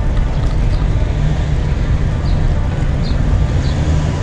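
Steady low rumble of road traffic and wind on the microphone of a moving bicycle, with no clear single event standing out.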